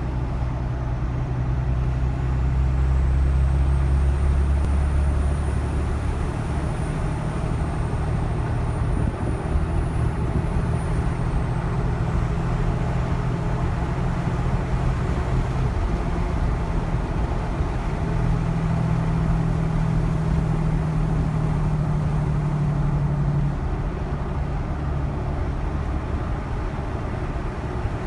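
2013 Cummins 6.7 L turbo-diesel running under load while towing about 3500 lbs, breathing through an S&B cold air intake, over a steady low engine and road drone. A thin, high turbocharger whistle rises in about two seconds in, wavers slightly, and fades out about twelve seconds in.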